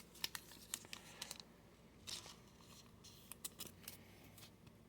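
Faint clicks and light rustles of trading cards being handled and stacked by hand, a dozen or so small ticks scattered through, with a brief rustle about two seconds in.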